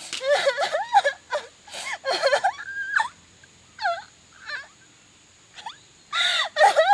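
A young woman crying hard, sobbing and wailing in broken, rising-and-falling cries. The crying eases to a few quiet sobs around the middle, then turns loud again near the end.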